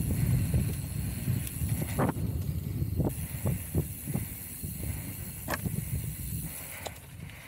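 Full-suspension mountain bike riding along a dirt trail: a steady low rumble of tyres and wind on the microphone, with sharp knocks and rattles from bumps about two, three and five and a half seconds in.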